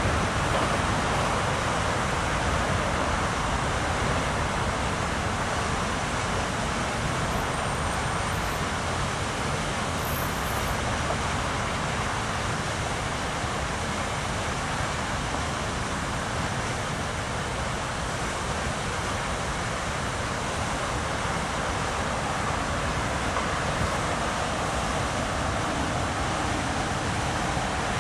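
Steady city road traffic: a continuous hum of car, van and bus engines and tyres going by.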